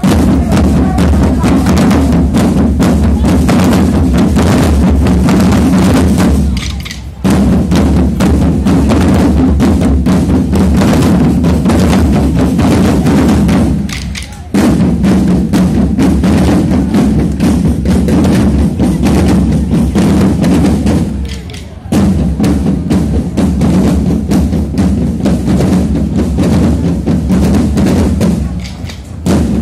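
Procession drums, snare and bass drums, playing a dense, continuous rolling pattern. They break off briefly about every seven seconds and start again.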